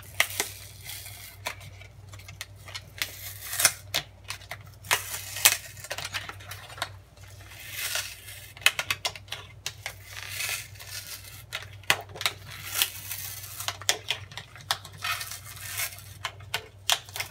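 Adhesive-backed membrane keypad being peeled off an electric range's control board: stretches of tearing and plastic crackling broken up by many sharp clicks and taps.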